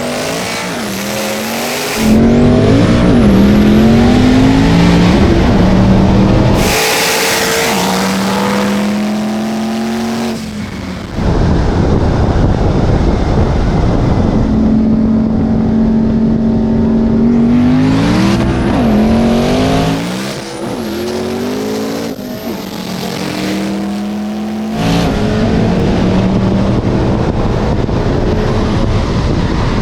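Twin-turbo Ford Mustangs with Coyote 5.0 V8 engines racing at full throttle. Engine pitch climbs and drops back with each upshift, several times over, with loud stretches as the cars pass.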